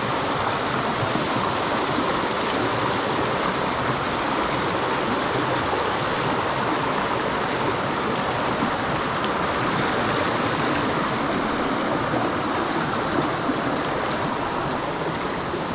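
Steady, even rush of water from a stream and its waterfall.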